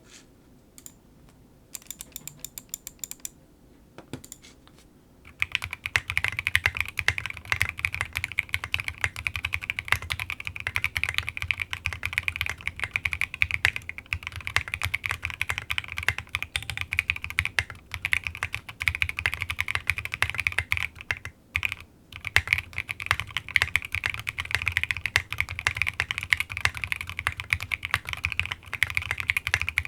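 Custom gasket-mounted mechanical keyboard with a polycarbonate plate, lubed and filmed Alpaca V2 linear switches and SA-profile keycaps, being typed on. A few scattered keystrokes at first, then steady fast typing from about five seconds in, with a brief pause a little past the middle.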